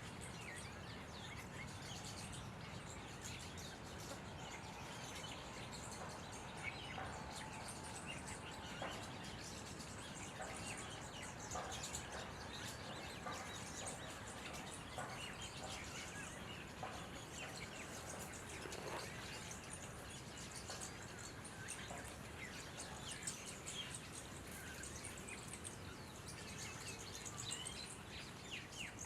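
A chorus of birds chirping and calling, red-vented bulbuls among them, with many short chirps scattered throughout over a steady background hiss.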